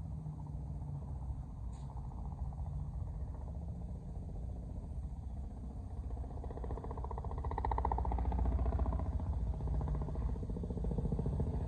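Motors and propellers of a 3.5-inch FPV freestyle quadcopter buzzing in flight over a low rumble, swelling louder about seven seconds in.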